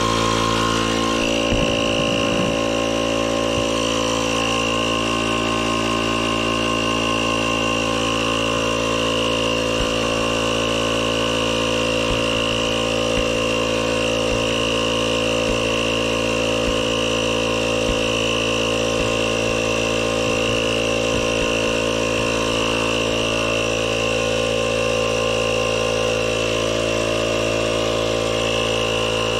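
A motor running at a steady, unchanging speed for the whole stretch, a constant mechanical hum.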